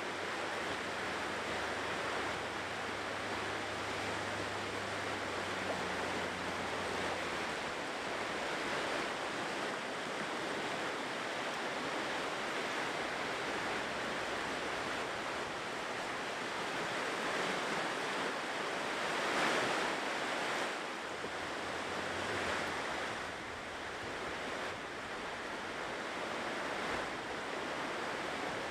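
Ocean waves washing onto a shore in a steady surf, swelling to a louder wave break about two-thirds of the way through.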